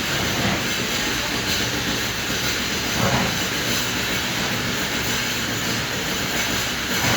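A septic siphoning truck's vacuum pump and engine running steadily, a loud, even mechanical noise.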